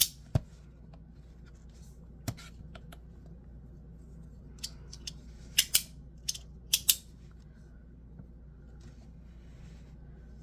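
Sharp snapping clicks from a 3D-printed magnetic fidget slider with a two-click action, its halves snapping between positions. There are a few scattered snaps, then two quick pairs of snaps a little past the middle.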